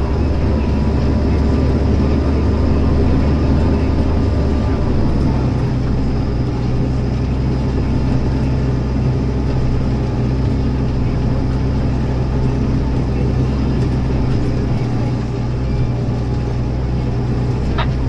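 Tractor engine running steadily under load while pulling a disc plough through stubble. Its note shifts slightly about five seconds in, and there is a brief click near the end.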